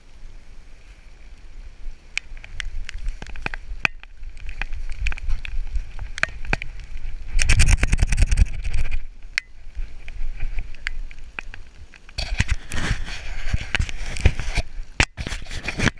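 Rustling, scraping and clicks from a GoPro mounted on a Labrador retriever's back as she moves through dry leaf litter. About seven and a half seconds in comes a loud burst of rapid rattling, about a second and a half long, as the dog shakes herself off and the mount shakes with her. From about twelve seconds in there is a run of close knocks and rustling as a person handles the dog and the camera.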